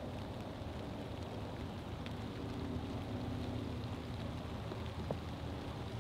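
Rain falling steadily: an even hiss with a few faint ticks.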